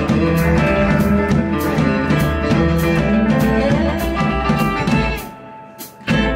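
Live rockabilly band of electric guitars, upright bass and drum kit playing an instrumental passage with a steady drum beat. About five seconds in the band drops out almost completely in a brief stop, then comes back in together near the end.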